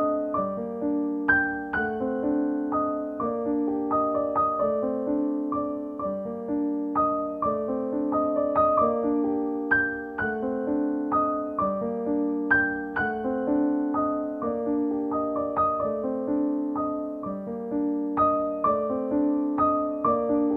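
Background piano music: a repeating pattern of sustained notes struck in a steady pulse.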